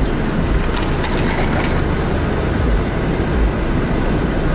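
Loud, steady vehicle rumble with scattered sharp clicks and rattles.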